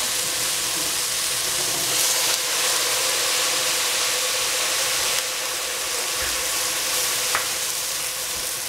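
Green cabbage and capsicum sizzling in a hot stainless steel pot with a little water just added, a steady hiss as the water boils off into steam, easing slightly about five seconds in.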